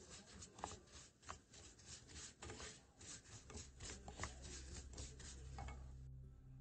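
Wooden spoon stirring and scraping broken vermicelli noodles around a nonstick pan as they toast, a rapid rustling scrape of many small strokes that stops shortly before the end.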